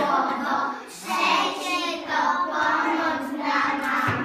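A group of preschool children singing a song together, in phrases with a short breath about a second in.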